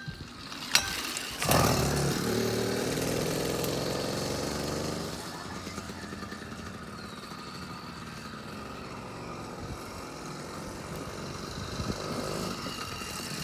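A small motor starts with a click and then runs steadily. It is louder for the first few seconds and settles lower after about five seconds.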